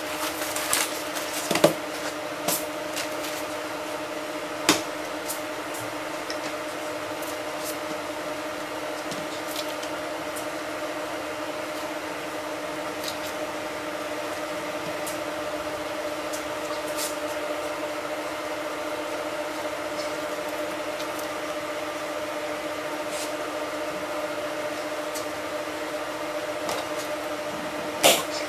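A steady machine-like hum holding two steady tones, with scattered sharp clicks and knocks of work handling. The loudest knocks come about a second and a half in, near five seconds, and near the end.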